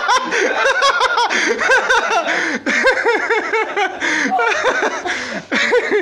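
Women laughing hard without a break: rapid high-pitched cackles and giggles with breathy gasps between them.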